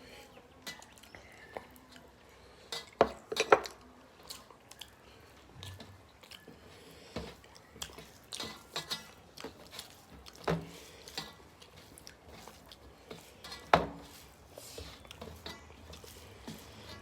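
Eating at a meal: chewing, with irregular clicks and knocks of dishes on a plate. The sharpest knocks come about three seconds in and again near fourteen seconds.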